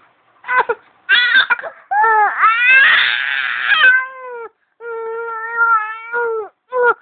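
A baby crying in a series of wails: a few short cries, then a long cry that turns strained and rough about three seconds in, and a steadier drawn-out wail near the end.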